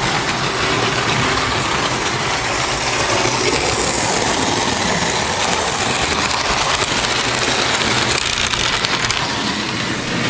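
Märklin model trains running on the layout's track: a steady clattering rumble.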